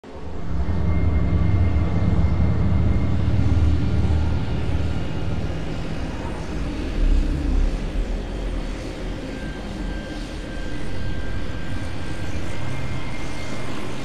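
Intro sound effect: a steady, aircraft-like low rumble with hiss and a few faint held tones, easing off around the middle and building again near the end.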